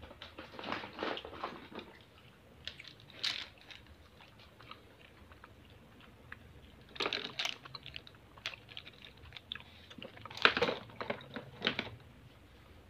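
Wooden pencils clicking and clattering against each other and the plastic toy truck bed as they are handled and laid in, in several short bursts of rattling.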